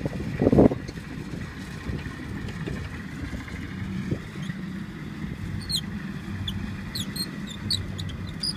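Kubota RT120 walking tractor's single-cylinder diesel engine running steadily with a low hum, with a few sharp high clicks over the last three seconds.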